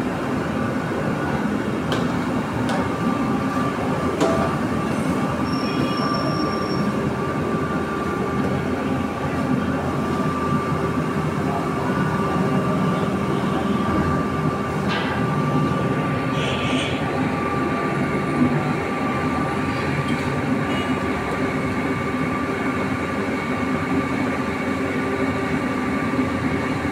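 Electric dough-ball rolling machine running continuously: a dense mechanical rumble with a steady whine, and a few faint clicks.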